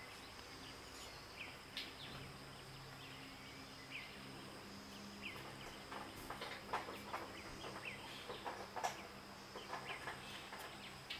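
Quiet outdoor ambience with scattered short bird calls and chirps, growing busier in the second half, over a faint steady high tone.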